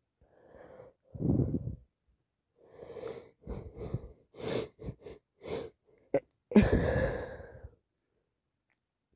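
A person with a head cold takes a run of short, wheezy, catching breaths as a sneeze builds, then lets out one loud sneeze about two-thirds of the way through.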